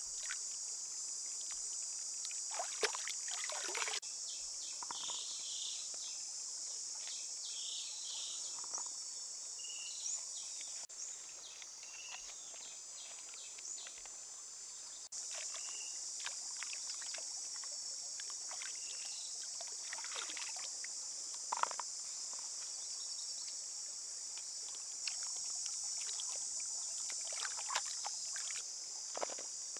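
Steady high-pitched insect chorus, with scattered splashes and trickles of water as vegetables are rinsed by hand in a running stream. The chorus weakens for a few seconds midway.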